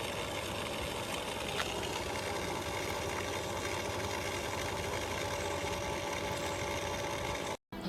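Small solar fountain pump running with a steady hum while water sprays from its sprinkler-head nozzle.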